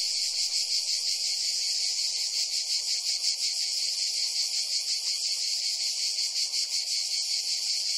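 A dense chorus of cicadas singing steadily, a loud, high buzz with a fast, even pulse that does not let up.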